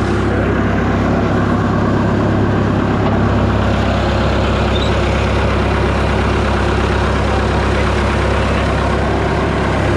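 Large wood chipper's engine and cutting drum running at a steady, unchanging speed, with no wood being chipped.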